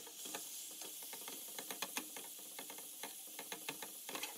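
Cubed tri-tip beef sizzling in oil in a stainless steel pan, a steady faint sizzle, with many quick clicks and scrapes of a wooden spatula turning the pieces against the pan.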